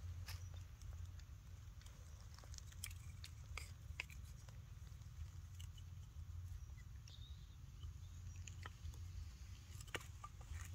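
Faint irregular little clicks and smacks of a baby monkey mouthing and sucking at bare skin, over a steady low rumble.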